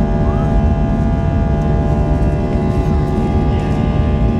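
Airbus airliner's jet engines at climb power just after takeoff, heard inside the cabin: a steady loud rumble with several steady whining tones over it.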